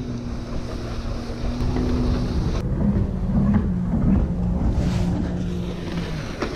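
Jet ski engine running at speed, its pitch shifting as the craft turns. Wind rumbles on the microphone underneath.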